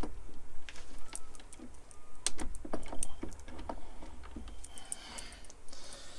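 Irregular light metal clinks and taps as a tool post is set down and positioned on a lathe's cross slide, some clicks with a brief ring.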